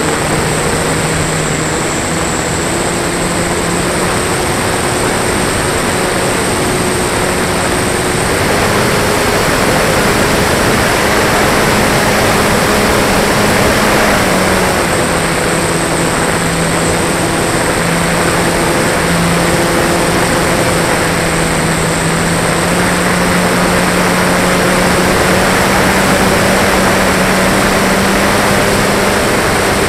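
Flyzone Beaver RC model plane in flight, heard from the airframe: the electric motor and propeller give a steady whine that shifts a little in pitch now and then with throttle, over the rush of wind. It gets slightly louder about 8 seconds in.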